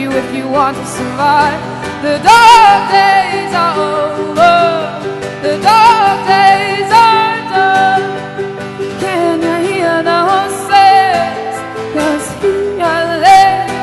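Live acoustic performance: a woman singing long, wavering held notes into a microphone, accompanied by acoustic guitar and harp.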